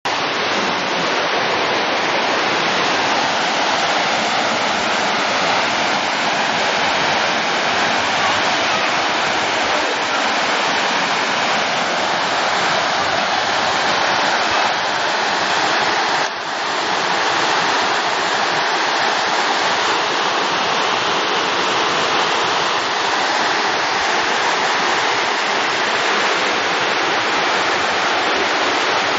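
Rushing floodwater from the storm-swollen river, a loud, steady rush with a brief dip just past halfway.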